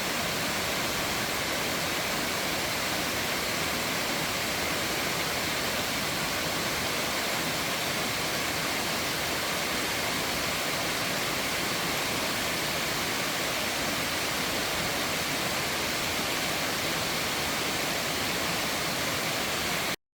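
Mountain stream rushing steadily over rocks, an even, continuous rush of water that cuts off suddenly just before the end.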